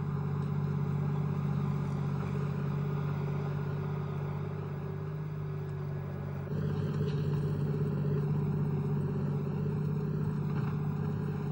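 AMX-30B2 main battle tank's engine running steadily as the tank drives, a continuous low drone. The sound shifts and gets slightly louder about six and a half seconds in.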